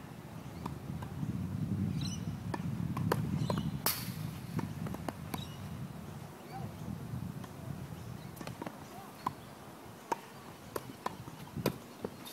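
A tennis rally: racquets striking the ball and the ball bouncing on the court, as sharp pops at irregular intervals every second or so, the sharpest about four seconds in, over a low rumble in the first half.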